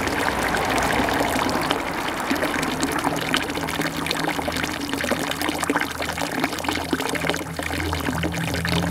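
Rain beginning to fall, a steady patter of many small drops. A low hum comes in about a third of the way through and grows louder near the end.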